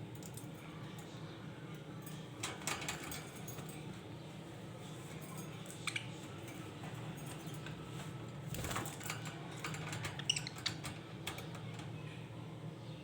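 Pet budgies moving about: scattered clicks and scratches in small clusters, with a few short chirps about ten seconds in, over a steady low hum.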